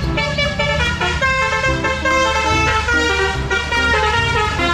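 Indonesian 'telolet' bus horn: a multi-tone air horn playing a quick tune of changing notes over a steady low engine hum.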